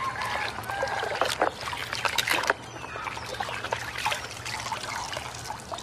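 Splashing and sloshing of a hand scrubbing a plastic toy monster truck in a basin of soapy water. Water trickles off the toy as it is lifted out.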